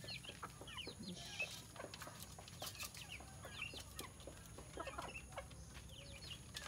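Free-range native chickens, a hen with chicks, clucking in many short, scattered calls.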